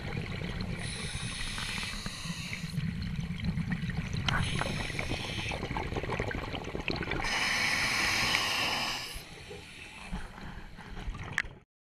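Scuba diver breathing through a regulator underwater, heard through an underwater camera housing: a steady low rumble with bubbling, and two long hissing breaths about six seconds apart. The sound cuts off abruptly near the end.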